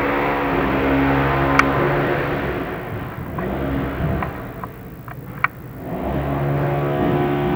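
A motor running steadily with a droning hum. It fades out a few seconds in, a few sharp clicks and taps are heard, and then it comes back about six seconds in.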